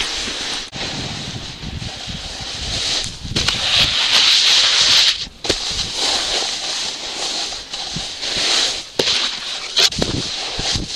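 Snowboard sliding over snow: a hissing scrape of the base and edges that swells and fades, dropping away briefly about five seconds in, with a few sharp knocks.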